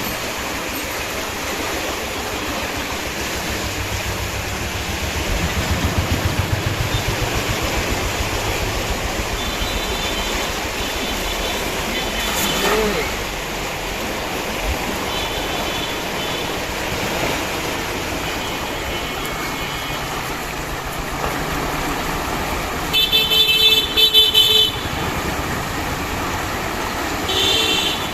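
Steady rush of floodwater pouring through a river sluice gate, with vehicle horns honking in short beeps several times, loudest about two-thirds of the way through. A vehicle engine rumbles past early on.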